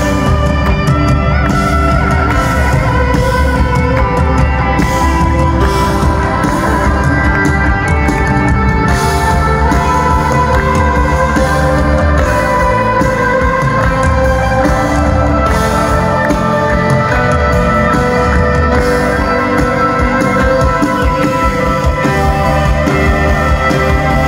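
Live rock band playing loudly, with electric guitar over bass, drums and keyboard, recorded from among the audience.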